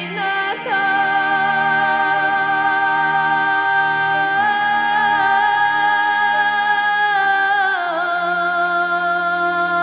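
Background music of long held notes that waver slightly, sliding down in pitch about eight seconds in.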